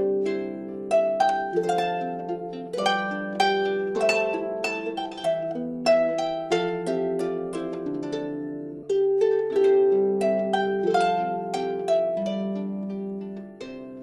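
Background music: a steady run of plucked, ringing notes over held lower tones, in the manner of a harp.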